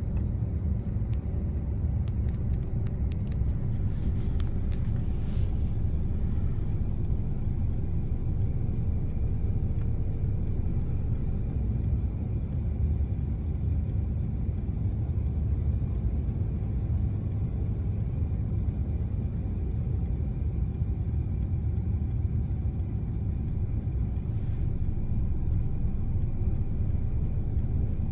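A taxi on the move: a steady low rumble of road and engine noise inside the car, with a few faint ticks about four to five seconds in.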